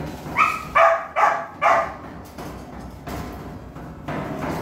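A puppy barking four times in quick succession in the first two seconds.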